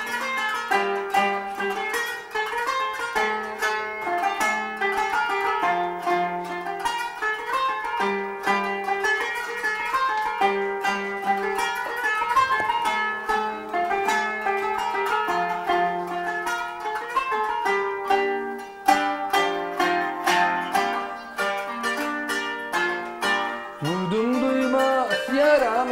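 Kanun, the Turkish plucked zither, played with metal finger picks: a fast instrumental melody of many quick plucked notes, running on without a break.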